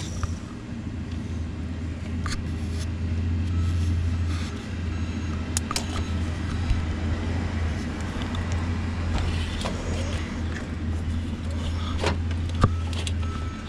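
Metal clicks and clinks of slip-joint pliers working a spring hose clamp on a rubber power steering hose, a few sharp ones scattered through, over a steady low rumble.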